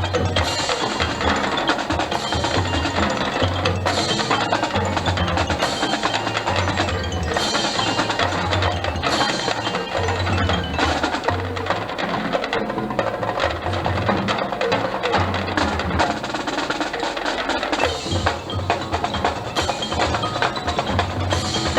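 Marching band playing its show music, with percussion prominent over a regular low pulse.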